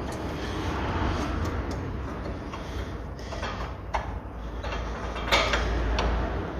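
Clicks and scrapes of metal brake parts being handled as rear brake pads and caliper are fitted, with a louder clatter about five seconds in. A steady low hum runs underneath.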